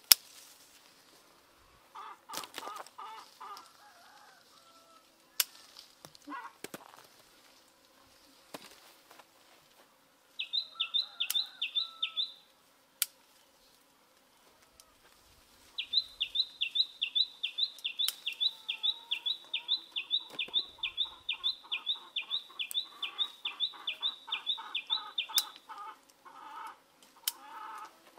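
Birds calling: a high note repeated about three times a second in two long runs, with lower, quicker pulsed calls around them.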